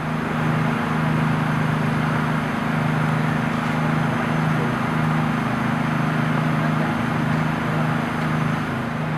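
An engine running steadily at idle: a low, even hum that does not change.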